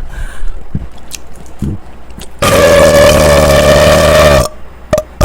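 A man belching: one long, loud burp lasting about two seconds, starting about two and a half seconds in, after a few small mouth clicks and gulps.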